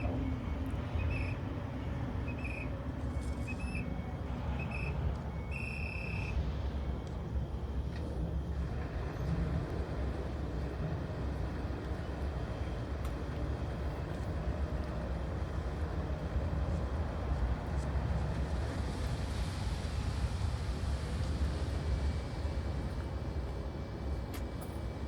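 Backhoe loader's diesel engine running steadily, with a high reversing alarm beeping about once a second for the first six seconds. A hiss swells and fades about three-quarters of the way through.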